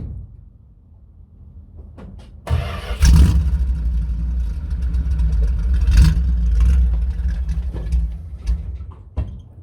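1972 Dodge Demon's engine cranking and catching about two and a half seconds in, then running loud and steady at a low pitch before dropping away near the end.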